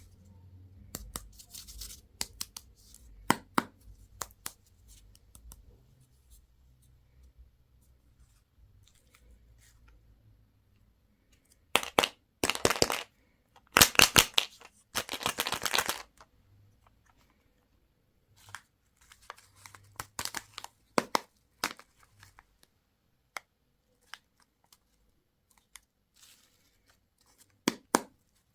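Candy packaging being torn open and crinkled: scattered sharp clicks and crackles, with louder tearing bursts about twelve to sixteen seconds in and again near the end.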